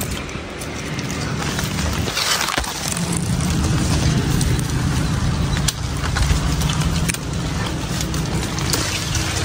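A person climbing a mango tree: leaves and branches rustling and crackling with scattered clicks, over a steady low hum that sets in about three seconds in.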